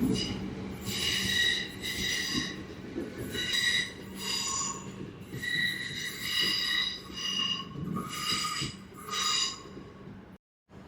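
Metro Trains suburban electric train pulling out on the Cranbourne line, its wheels squealing in repeated high-pitched bursts of about half a second each, over a low rumble of the train running. The sound cuts off abruptly near the end.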